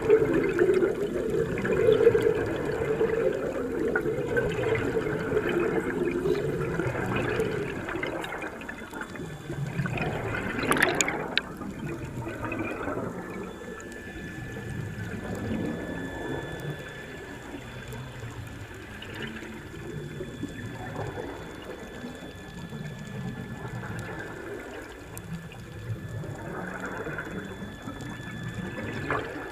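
Water gurgling and sloshing, louder for the first several seconds and then settling lower, with a brief rising whistle-like sweep about eleven seconds in.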